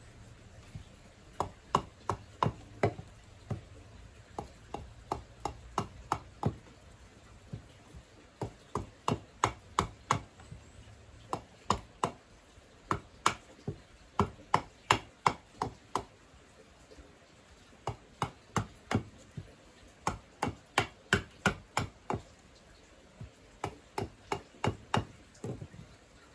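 Short hatchet chopping into a wooden cup blank held against a stump block: runs of sharp knocks at about three a second, broken by several short pauses.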